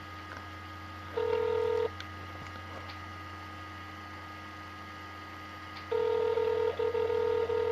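Telephone ringback tone on an outgoing call. A short ring about a second in, a pause of about four seconds, then a two-second ring near the end, over a steady low hum.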